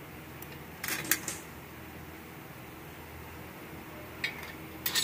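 Metal internal parts of a Nissan RE4R01A automatic transmission clinking against each other and the aluminium case as they are handled by hand: a quick cluster of clinks about a second in, one faint clink later, and louder ones near the end, over a steady low hum.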